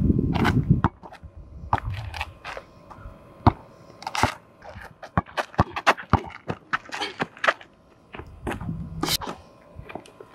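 Irregular sharp hits and scrapes of one-on-one basketball on an outdoor asphalt court: a basketball bouncing on the asphalt and sneakers scuffing as the players move, with a heavier rumble in the first second.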